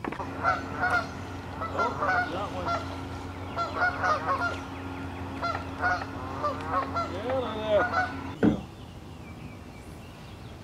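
Geese honking over and over, the calls overlapping, above a steady low hum; the honking cuts off abruptly about eight and a half seconds in.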